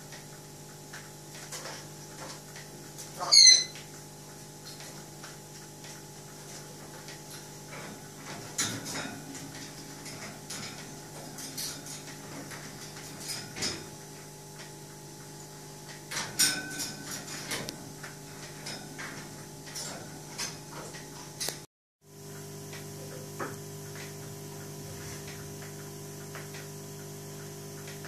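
An African grey parrot gives one short, loud, wavering whistle about three seconds in, then makes scattered clicks, knocks and scrapes as it moves about the cage. A steady mechanical hum runs underneath and drops out for a moment near the end.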